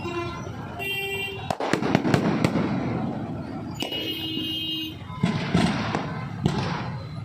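Aerial firework shells (sky bombs) going off: a rapid series of sharp bangs over continuous crackling, with two short steady tones about one second in and about four seconds in.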